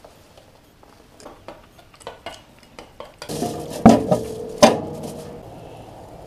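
Faint scattered clicks and taps, then aluminium foil crinkling and two loud metallic clanks less than a second apart that ring briefly, as foil is pressed down onto a gas barbecue's metal grill.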